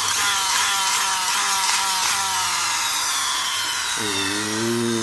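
Battery-powered toy gun making its electronic sound effect: a loud, buzzy tone whose pitch falls slowly. About four seconds in, a lower steady tone joins it.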